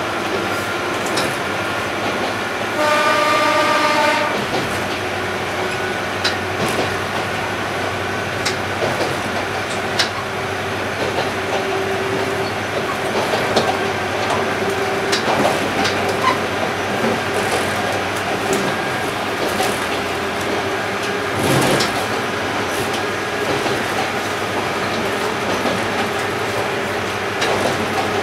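Interior running noise of a diesel railcar under way, with the clickety-clack of wheels over rail joints. A short horn blast from the train comes about three seconds in.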